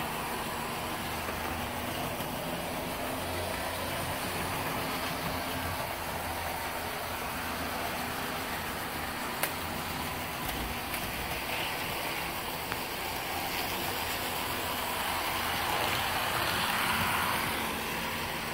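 Model train locomotives running on the layout's track: a steady whir of the motors and wheels on rail, a little louder for a few seconds near the end.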